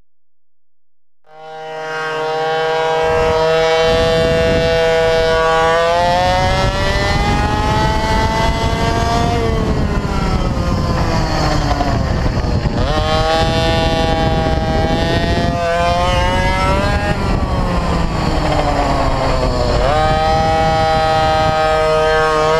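Mini bike engine heard onboard while lapping a kart track, fading in about a second in. It revs up with rising pitch and drops sharply several times as the rider accelerates and backs off, with wind rushing over the microphone.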